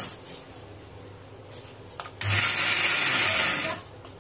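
Electric mixer grinder with a steel jar, pulsed on chopped green chillies. The motor cuts out at the start, a switch clicks about two seconds in, and it runs again for about a second and a half before stopping. The short pulses leave the chillies coarsely crushed rather than ground to a paste.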